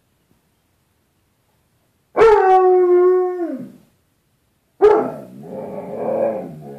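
Dog howling: about two seconds in, one held howl that drops in pitch as it fades, then after a short pause a second howl that wavers up and down in pitch, like 'talking'.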